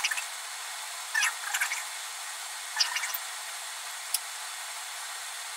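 Damp makeup sponge dabbed against the skin of the face in a few short, soft bursts, with one sharp little click near the end, over a steady background hiss.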